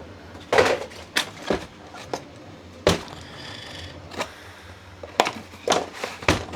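Cardboard boxes and filament refills being handled and tossed: a series of irregular knocks and rustles.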